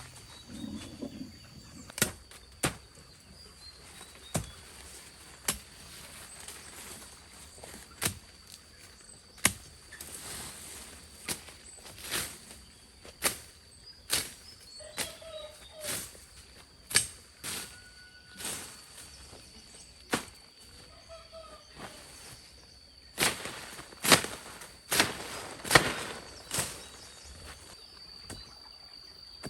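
Irregular sharp taps and knocks, roughly one a second, with a louder cluster near the end, over a thin steady high-pitched drone.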